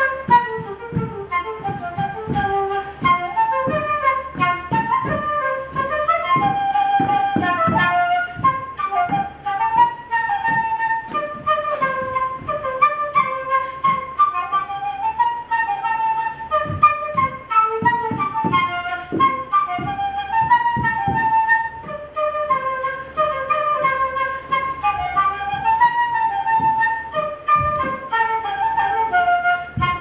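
Irish whistle music on double whistle and wooden F whistle: a quick melody of many short notes, rising and falling.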